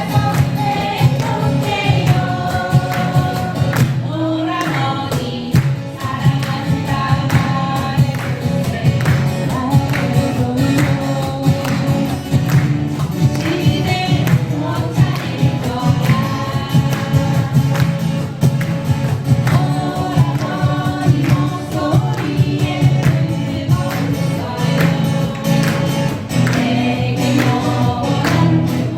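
Acoustic guitars strumming as a group of voices sings a song together.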